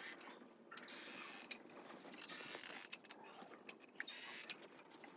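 Caulking gun pushing out Liquid Nails construction adhesive in several short hissing spurts, with mechanical clicks from the gun's trigger and plunger between them.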